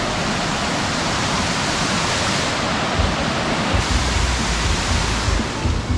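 Steady rushing of a large waterfall cascading over rock ledges. An uneven low rumble joins about halfway through.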